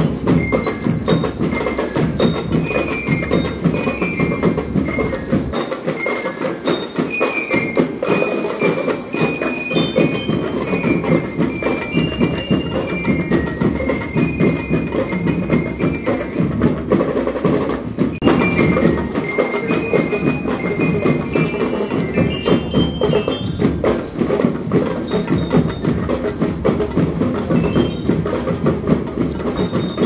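Marching band playing: bell lyres ring out a melody of short high notes over constant drumming.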